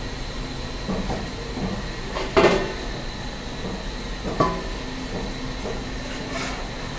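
Eatery din: a steady hum with faint voices, broken by two sharp clanks of metal cookware about two and a half and four and a half seconds in.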